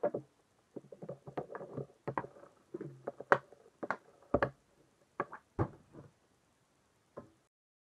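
Hockey stick and puck on a smooth plastic shooting surface: a run of sharp clicks and scrapes as the puck is stickhandled, with two heavier cracks about four and a half and five and a half seconds in as shots are taken. The sound cuts off about seven and a half seconds in.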